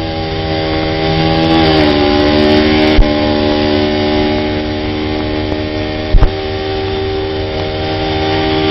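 Motorcycle engine running flat out in a steady drone, its pitch dipping slightly about two seconds in, heard through old film-soundtrack hiss with a few sharp pops.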